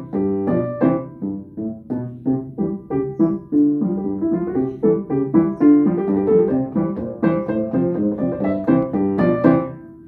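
Solo piano playing a ragtime piece: a brisk, steady stream of short notes and chords with no pauses.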